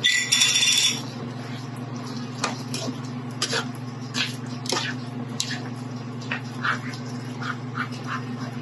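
Spatula stirring a thick creamy chicken sauce in a wok: a loud high squeal in the first second, then short scrapes and wet squelches of the sauce every half second or so, over a steady low hum.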